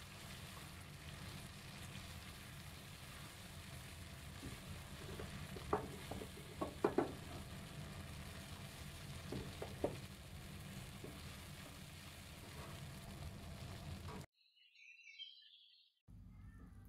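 Brownie and ice cream sizzling on a hot cast-iron sizzler plate: a steady hiss with a few sharp crackles in the middle, cutting off abruptly near the end.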